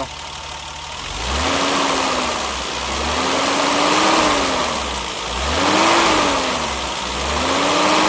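BMW 325i E30's 2.5-litre straight-six engine revved four times from idle, starting about a second in, each rev rising and falling slowly in pitch. A rushing of air swells with each rev: the hot engine's viscous-clutch cooling fan is engaged and spins up with engine speed.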